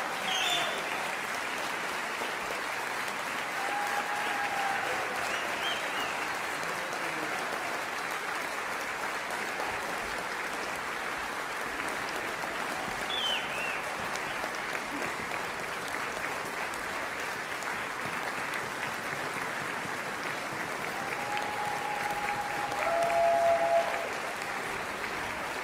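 Audience applauding steadily in a concert hall, with a few cheers rising above the clapping and a brief swell near the end.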